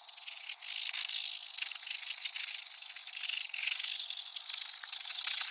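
Pilot G2 0.7 mm gel pen scribbling fast across a sheet of paper: a continuous scratchy rustle of the tip that swells and dips with the quick strokes.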